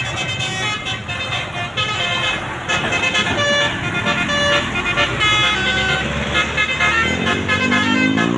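Bus 'telolet' musical air horn (Basuri type) playing a tune of short notes that jump between pitches, over the low rumble of bus engines and traffic. Near the end a low tone rises in pitch.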